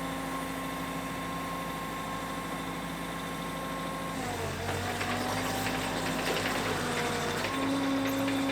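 Piling rig's engine running steadily. About four seconds in its note changes and grows a little louder, with rattling and clatter joining it as the rig starts working.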